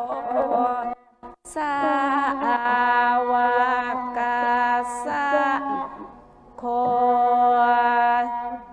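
Devotional chant sung in long, held notes, in three phrases with short breaks about a second in and just before six seconds in.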